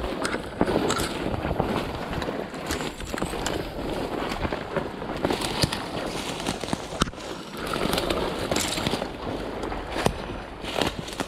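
Footsteps crunching through dry leaf litter and brush, with twigs snapping and branches and vines scraping past, in a steady run of crackles and sharp snaps.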